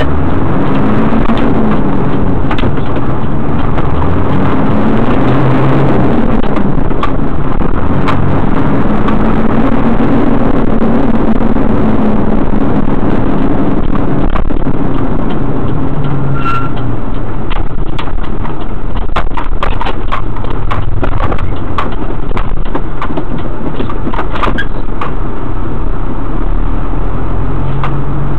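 Tow truck's engine running under way, heard from the cab, its pitch rising and falling repeatedly as it accelerates and changes gear, with frequent short clicks and rattles. Near the end it settles to a steady, lower note as the truck slows.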